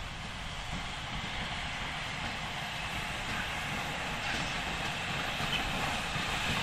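GWR King class 4-6-0 steam locomotive No. 6023 King Edward II running slowly along the line. Its wheels and motion rumble on the track, growing steadily louder as it approaches.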